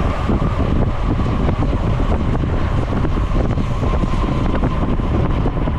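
Steady wind rush on the microphone of a camera riding on a road bicycle at speed, with a faint steady hum underneath.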